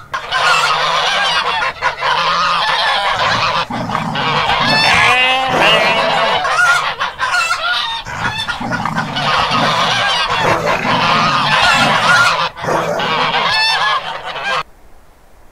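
A flock of barnyard fowl calling loudly, many calls overlapping in a dense jumble, in a scene of a wolf dog attacking chickens. The calling cuts off suddenly near the end.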